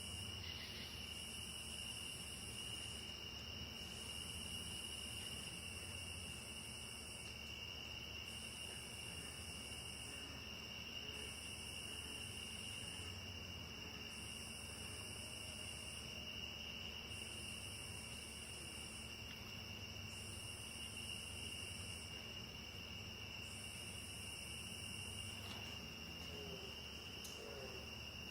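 Night chorus of crickets and katydids: steady unbroken high trills, with a still higher buzzing call that comes in bursts of about two seconds, repeating roughly every three seconds.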